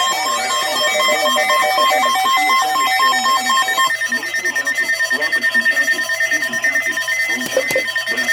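Electronic alert tones of an Emergency Alert System broadcast: several beeping tones in a repeating pattern, with a fast on-off chop in the first half that changes about four seconds in.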